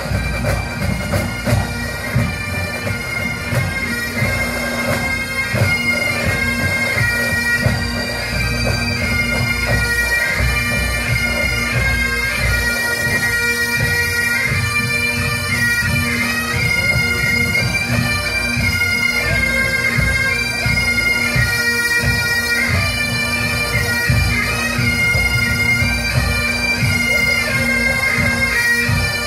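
Massed Highland pipe bands' bagpipes playing a tune in unison, the chanters' melody moving over a steady drone.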